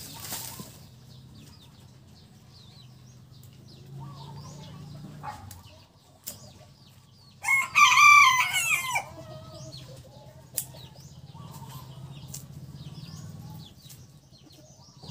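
A rooster crows once, about halfway through: a single crow of about a second and a half.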